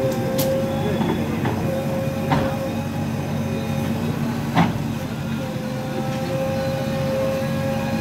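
JCB backhoe loader's diesel engine running steadily as it demolishes brickwork, with a few sharp knocks of masonry, the loudest a little past halfway.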